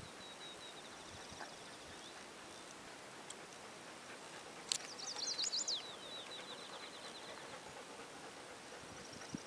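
A songbird singing: a faint high trill at first, then about five seconds in a louder burst of quick, falling high notes running into a fast trill that lasts about two seconds, over a steady background hiss.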